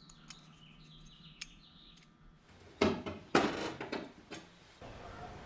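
Faint bird chirping, then from about three seconds in a run of loud, noisy bursts from work on sheet-metal panels held with clecos, which fade after about a second and a half.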